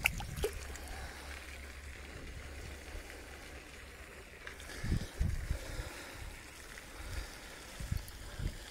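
Steady low wind rumble on the microphone outdoors, with a click at the start and a few soft low thumps around the middle and near the end.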